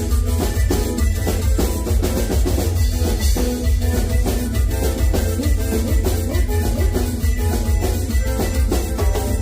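Upbeat Latin dance music with drum kit and percussion over a heavy bass line, keeping a steady beat.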